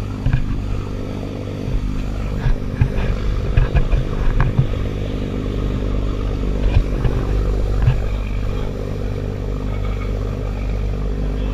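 Fast passenger boat's engines droning steadily under the rush of water along the hull, with irregular low thumps, mostly in the first eight seconds.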